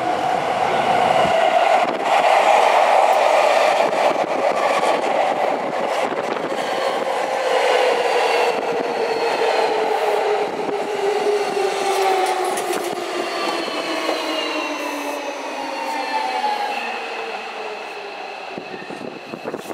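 Seibu 6000-series electric commuter train running past close by, its motor whine falling steadily in pitch as it slows, over the rumble and clicks of its wheels on the rails.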